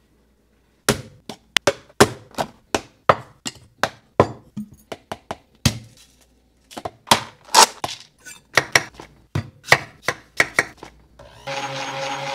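Kitchen knife chopping on a wooden cutting board: a long run of sharp separate knocks, about two or three a second. Near the end an immersion blender starts and runs steadily for about a second, blending the sauce.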